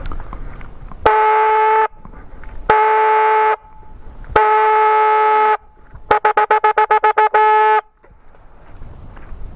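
Hunting horn blown on one steady note: three long blasts, then a quick run of about ten short toots ending in a last short blast.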